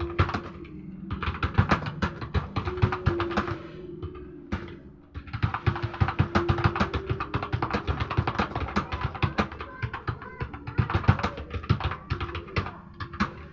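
Fast typing on a mobile phone's on-screen keyboard: a quick, uneven stream of key taps and clicks, with a short pause about four seconds in.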